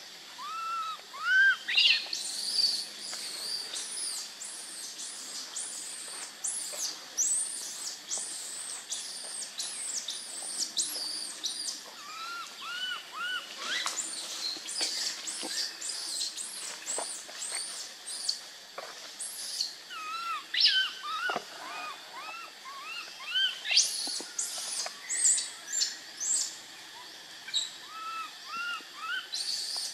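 A baby macaque crying for its mother: runs of three or four short rising-and-falling cries, with many high chirping calls around them.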